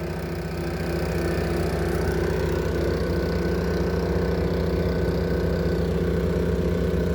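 Engine of a manhole vacuum tester running steadily, its pump pulling vacuum on a newly installed sealed manhole, drawing it down toward 10 inches of mercury. It gets slightly louder about a second in.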